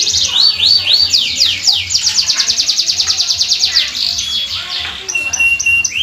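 Domestic canary singing a long, fast song of rapid trills made of repeated down-slurred notes, changing from one trill to the next several times, with a few short, flat whistled notes near the end.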